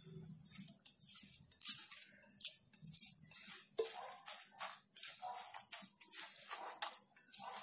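Green plastic spoon stirring a wet mix of grated potato and beaten egg in a glass bowl: irregular scraping and clicking of the spoon against the glass, with soft squelches of the mixture.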